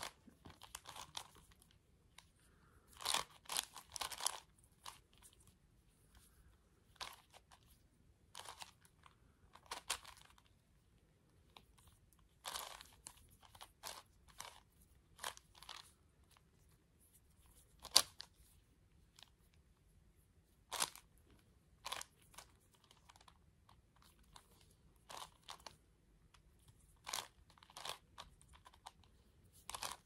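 A 5x5x5 Rubik's cube being turned by hand. Its layers rotate in short, irregular bursts of plastic rasping and clicking, with pauses between moves and one sharper click a little past the middle.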